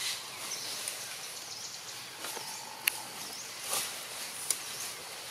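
Outdoor ambience: a steady hiss with faint, repeated high chirps and a few sharp clicks, one about three seconds in and another past four seconds.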